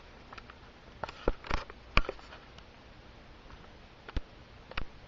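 A series of sharp clicks and light knocks, irregularly spaced and loudest about two seconds in, over a faint steady hum.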